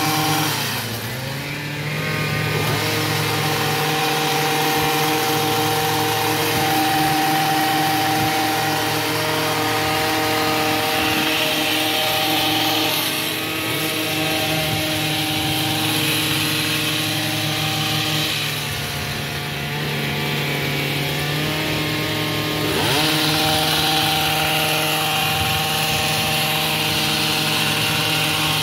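Gas hedge trimmer's small two-stroke engine running steadily at high speed while trimming shrubs. Its pitch sags and climbs back a few times as the throttle is eased and opened again.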